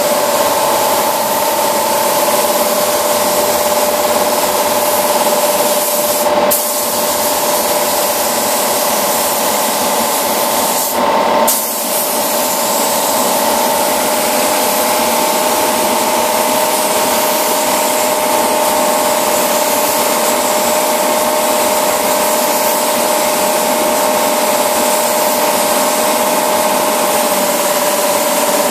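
Air-fed paint spray gun hissing steadily as it sprays paint onto a car body, with a steady tone running under the hiss. The sound changes briefly about six and eleven seconds in.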